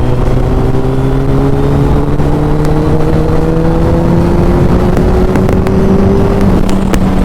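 Suzuki Hayabusa's inline-four engine pulling steadily under way, its pitch rising slowly as the bike gains speed.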